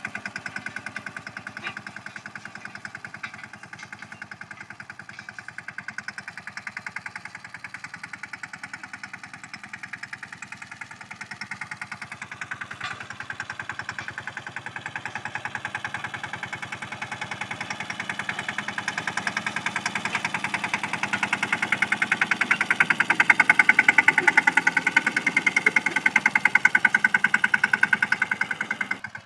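Small compact tractor's engine running as it drags a field roller over ploughed soil to level it, a fast even pulsing that grows louder over the last several seconds as the tractor comes close.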